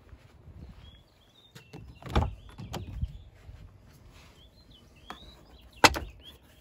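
Jeep Wrangler JL door latch clicking open and the door rattling as it is swung, followed a few seconds later by one sharp click, the loudest sound. Small birds chirp faintly in the background.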